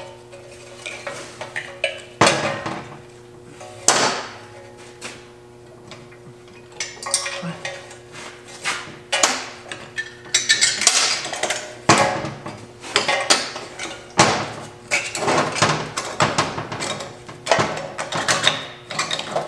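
Hand tools and loose steel parts of the e-brake hardware on a BMW E36 rear trailing arm clanking, clicking and scraping as they are worked off, in irregular knocks that grow busier in the second half.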